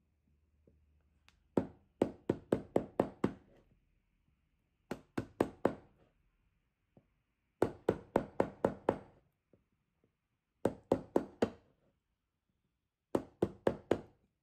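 Five bursts of five to seven quick, sharp knocks, about four a second, as a carving gouge is tapped into a block of hard Japanese zelkova (keyaki) wood.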